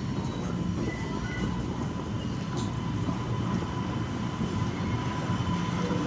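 Boston MBTA subway train running: a steady low rumble with a faint, thin high whine over it.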